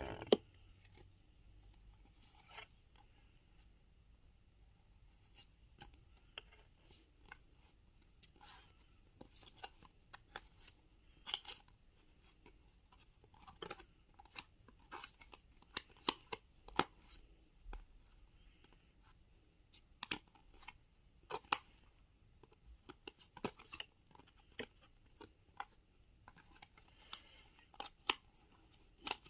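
Card packaging and a stack of lomo cards being handled and opened up close: irregular sharp clicks, snips and crinkles of paper and plastic, coming thicker in the second half.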